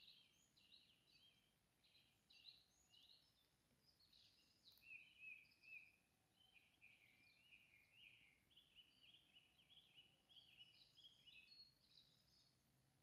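Faint songbird chorus: several birds chirping and twittering in quick overlapping short notes without a break.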